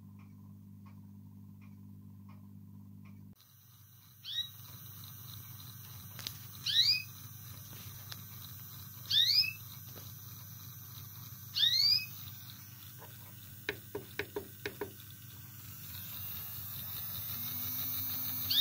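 A pet canary squawking: four loud rising calls about two and a half seconds apart. Under them is the low steady hum of a small OO gauge Thomas the Tank Engine model locomotive motor, freshly repaired and test-running slowly with its wheels turning freely. In the first few seconds the motor hum carries a light ticking about twice a second.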